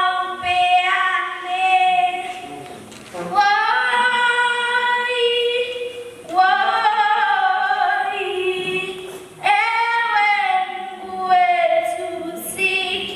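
A girl singing solo into a handheld microphone, in long held phrases broken by short breaths about every three seconds.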